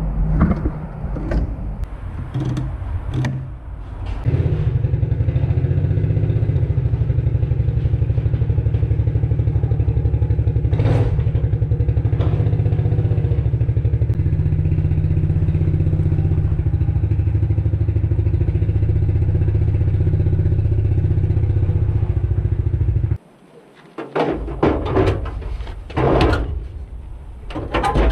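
Ford 300 (4.9 L) inline-six engine in the truck running steadily at idle for about nineteen seconds, then cutting off abruptly. Scattered knocks and clatter come before and after it.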